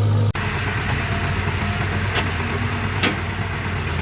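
Diesel engine of heavy digging or hauling machinery running steadily, cut off abruptly about a third of a second in and picked up again at a similar pitch, with two short knocks later on.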